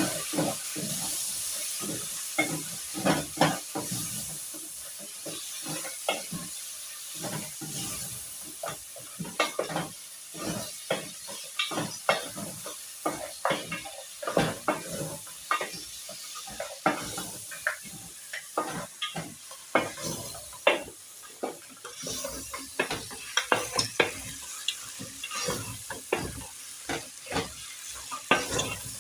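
A spoon stirring chopped tomatoes into a frying pot of beef stew, knocking and scraping against the pot many times at an irregular pace, over a steady sizzle.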